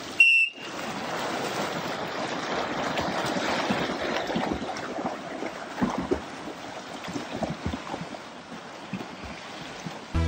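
A short, loud, high-pitched beep, then several seconds of steady water splashing and churning from swimmers.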